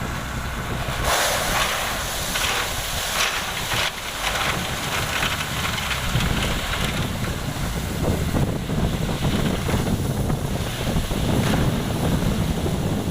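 Heavy road-construction machinery running steadily with a low engine sound, overlaid by a rushing hiss for about three seconds starting a second in.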